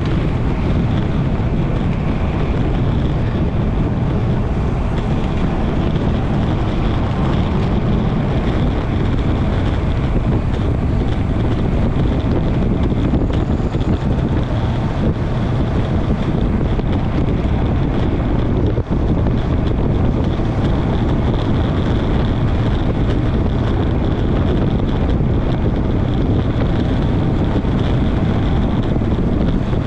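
Steady wind rush buffeting the microphone of a bike-mounted camera on a road bike descending at 25 to 37 mph.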